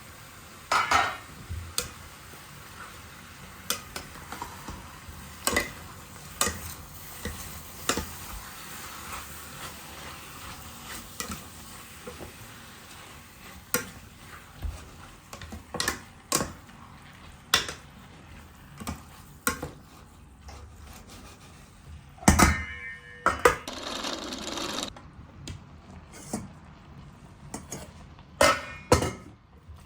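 Kitchen cookware and utensils clinking and knocking at irregular intervals over a low steady background noise, with a louder rushing or sizzling noise for a couple of seconds past the middle.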